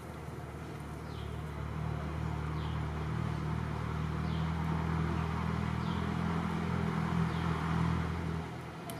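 A motor vehicle's engine running as a low, steady hum that grows louder and then falls away near the end. Faint short chirps repeat every second or so in the background.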